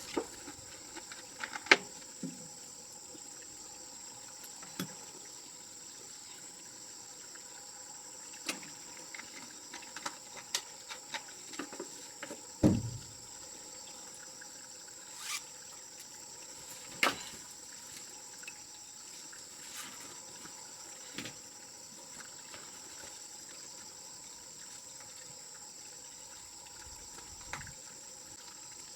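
Steady high insect trilling, with scattered light clicks and knocks and one heavier thump about thirteen seconds in.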